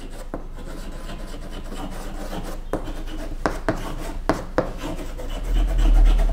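Chalk scratching across a chalkboard as a sentence is handwritten, with several sharp taps of the chalk against the board between about two and a half and five seconds in.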